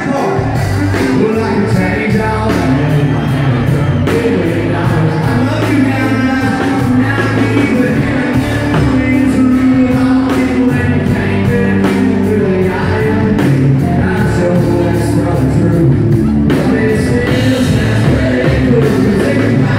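Live country-rock band playing loud, with drums, electric guitars and a male lead singer, heard from the side of the stage.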